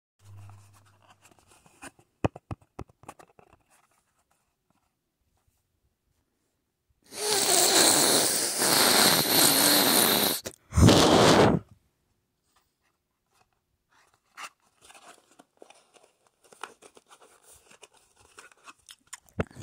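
Cardboard and paper packaging of a Dr. Squatch soap bar being torn open: one long rip of about three seconds, a shorter second rip just after, then faint crinkling and scraping as the wrapper is handled.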